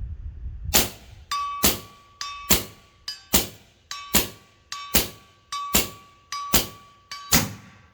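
.357 Terminator air rifle, suppressed with a baffled carbon-fibre shroud, firing FX pellets in quick succession: nine sharp shots a little under a second apart, each with a fainter click between, and a thin steady ringing tone under the string. It cycles the pellets without a hitch.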